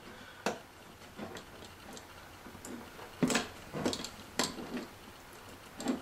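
Scattered light clicks and taps, several spaced irregularly over a few seconds, from stripped wires being fitted into the screw terminals of a relay module.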